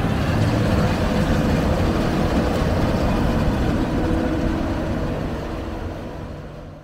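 Combine harvester engine running with a steady low drone, fading out near the end.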